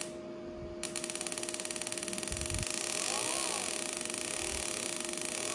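Steady mechanical running with a hum and fast, even ticking, from the ignition test rig turning over at about 1,500 rpm under a programmable CDI. The ticking and hiss drop out for the first second, then run on evenly.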